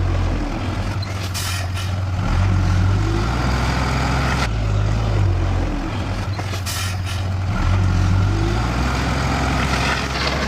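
Heavy diesel engine of earth-moving machinery running and working under changing load, its hum swelling and easing every couple of seconds, with a few short hisses.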